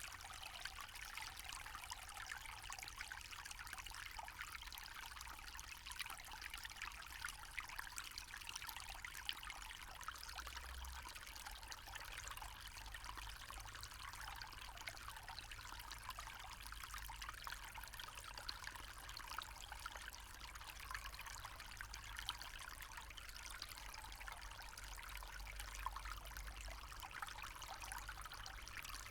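A small forest stream trickling and babbling over stones, a steady splashing rush with fine flickering detail.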